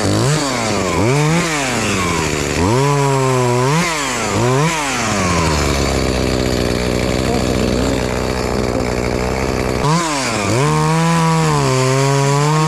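Petrol chainsaw revved hard several times in quick succession, idling for about four seconds in the middle, then held at full revs again from about ten seconds in.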